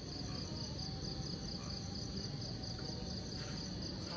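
Crickets trilling in a steady, pulsing chorus.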